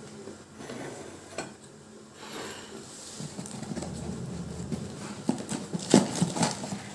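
Ceramic oven dishes being handled and set down: scattered knocks and clinks, with a cluster of them near the end.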